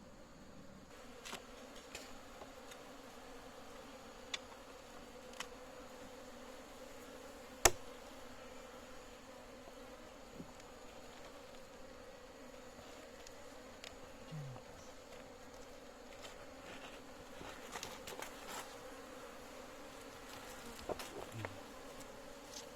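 Insects buzzing steadily, with scattered light clicks and one sharp knock about eight seconds in.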